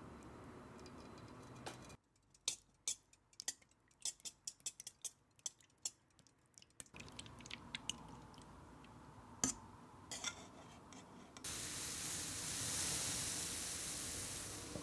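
Wire whisk clicking and clinking against a stainless steel bowl in quick, irregular taps as eggs and oil are beaten. From about two-thirds of the way in, a steady hiss of granulated sugar being poured into a ceramic cup.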